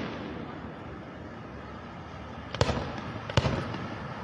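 Aerial fireworks shells bursting: two sharp bangs less than a second apart, about two-thirds of the way in, each followed by a rumbling tail, after the rumble of an earlier burst has faded.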